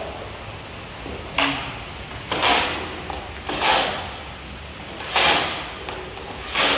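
Cordless drill driving screws into the metal corner brackets of a projection screen frame in five short bursts, about half a second each and a second or so apart.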